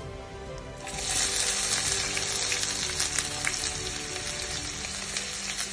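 Chopped onion dropped into hot mustard oil with cumin seeds breaks into a loud sizzle about a second in, with lots of small crackling pops, and keeps frying steadily.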